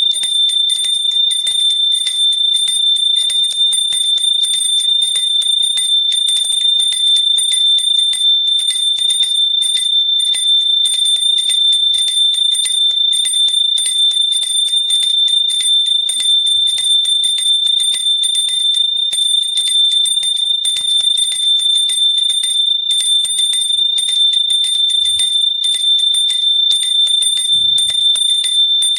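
Small hand bell rung continuously and fast: its clapper strikes rapidly and evenly, keeping one high, steady ring going without a break.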